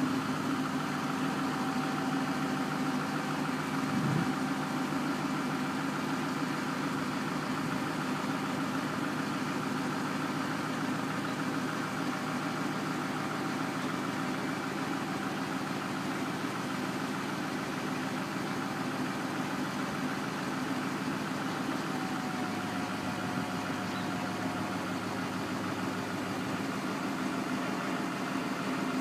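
Yard spotter tractor's diesel engine idling steadily.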